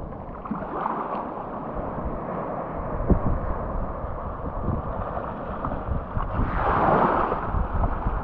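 Shallow seawater washing and lapping over the rocks at the water's edge, muffled, with a low rumble of wind on the microphone. A bigger surge of water comes through about six and a half seconds in and fades a second later.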